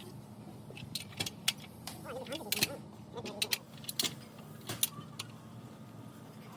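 Metal hand tools and engine parts clinking and tapping against one another, in irregular sharp clinks, over a steady low hum.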